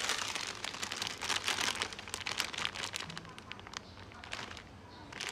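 Plastic instant-noodle packets crinkling as they are handled, loudest over the first three seconds and sparser after.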